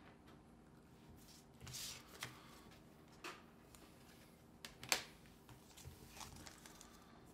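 Faint, sparse rustling and light ticks of trading cards being handled, the sharpest tick about five seconds in.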